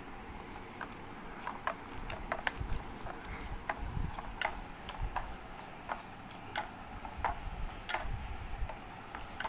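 A hand kneading and mashing crumbly chhena on a steel plate, with irregular light clicks and ticks against the metal, a few per second.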